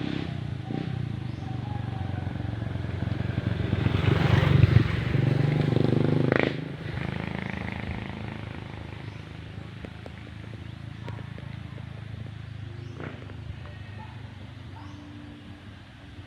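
A motor vehicle engine running close by, growing louder to a peak about five seconds in, cutting down sharply soon after, then fading away.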